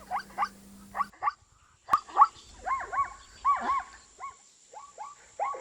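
Zebra barking: quick runs of short, yelping calls, each rising and falling in pitch, with a brief pause about a second in.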